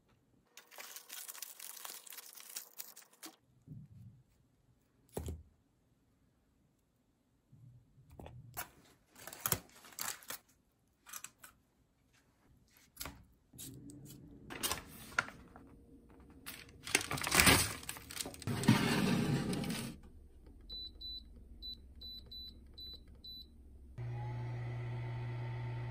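Aluminium foil crinkling and rustling in irregular bursts as it is unwrapped from food, loudest shortly before the end. Then a run of short electronic beeps, and near the end a countertop convection oven running with a steady hum.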